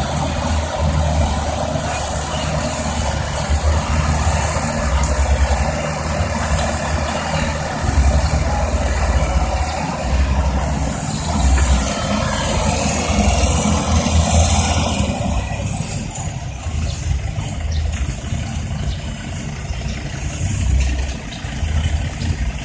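Diesel engine of a tracked excavator running steadily as it digs and loads soil, with a faint high whine in the middle; the noise eases somewhat after about fifteen seconds.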